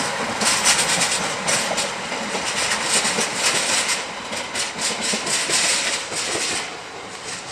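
Slovenian Railways class 713 electric multiple unit rolling past close by, its wheels clattering in a quick, uneven rhythm over a steady hiss. The hiss drops away and the sound grows quieter near the end.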